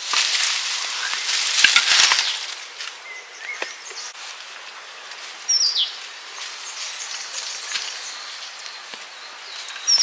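Outdoor rural ambience: loud rustling noise for the first two seconds, then a quieter background with a bird's short falling chirp about halfway through and another near the end.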